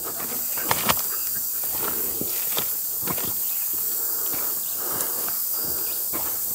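Footsteps on a rocky dirt trail, about two steps a second, over a steady high hiss.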